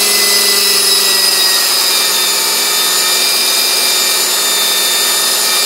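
Model helicopter's five-blade rotor head spinning at a steady speed on a bench test: an even rush of blade noise with the drive motor's whine of several steady high tones.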